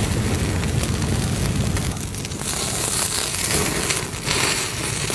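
Open wood fire crackling, with many small pops over a steady hiss and low rumble.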